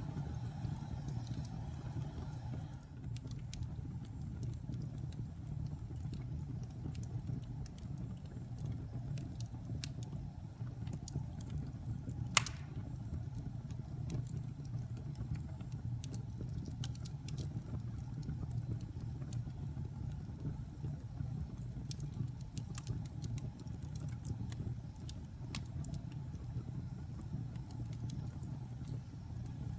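Wood fire crackling in a fireplace: a steady low rumble of burning with scattered small pops and snaps, and one much louder pop a little under halfway through.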